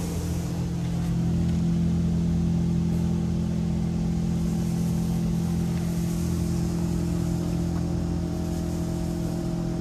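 In-bay automatic car wash equipment running with a steady low hum made of several steady tones, with no spray of water.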